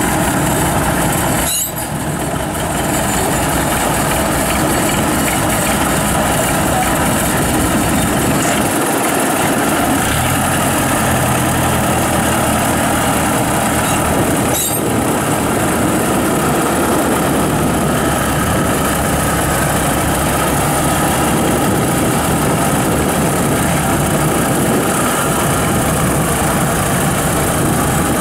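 Engine of a rubber-tracked rice transporter running steadily as the crawler creeps down the bank; its low engine note changes about ten seconds in.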